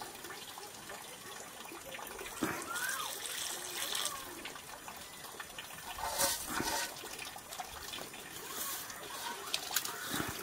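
Water poured in a trickle from an aluminium pot into a blackened cooking pot, with louder splashes about six seconds in and again near the end.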